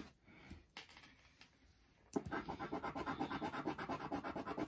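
Scratch-off lottery ticket being scratched with a handheld scratcher tool: rapid, even back-and-forth scraping strokes, several a second, starting about two seconds in after a few faint taps from the card being set down.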